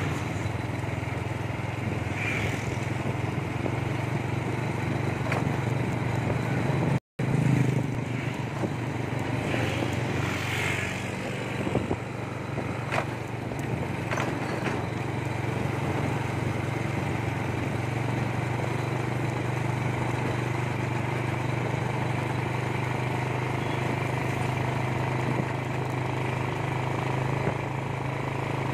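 Small motorcycle engine running steadily while riding along a road, with wind and road noise. The sound drops out for an instant about seven seconds in.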